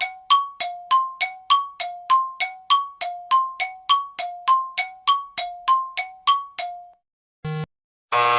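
Rapid run of metallic bell dings, about three a second, alternating between two pitches and stopping about seven seconds in. A short beep follows, then a harsh steady buzzer starts near the end.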